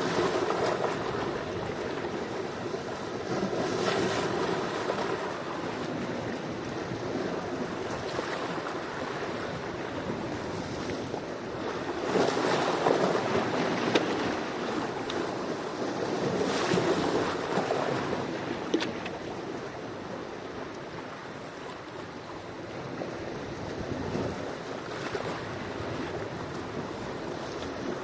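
Sea waves breaking and washing on a shore, a continuous rush of surf that swells and eases with each wave, with a few sharp splashes.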